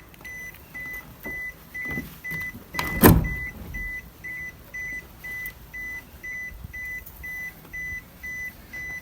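Car warning chime beeping evenly, about twice a second, as when a door is open or the key is in the ignition. About three seconds in, a car door shuts with one loud thump.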